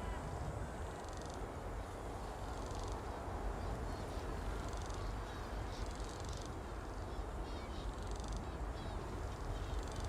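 Open-country ambience: steady low wind noise with faint, scattered bird calls.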